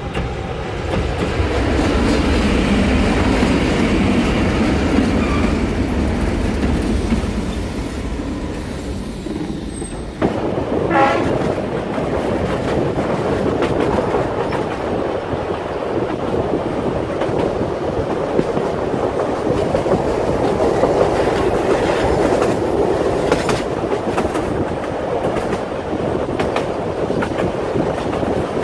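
Narrow-gauge diesel locomotive running by, pulling its carriages. About ten seconds in, the sound switches to the ride aboard the train: a short horn blast, then steady running noise of wheels rolling and clattering on the rails, heard from a carriage.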